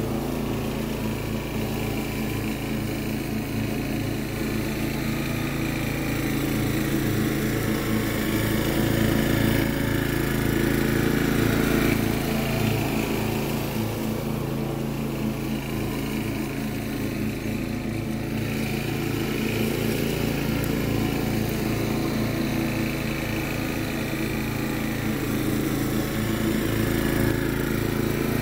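Riding lawn mower's engine running steadily while mowing, growing louder and softer as the mower moves across the lawn.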